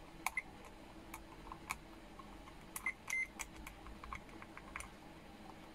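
Faint, scattered clicks of multimeter probe tips touching solder joints on a TV power-supply board, with two short beeps from the meter about halfway through, as the board is checked for damaged parts.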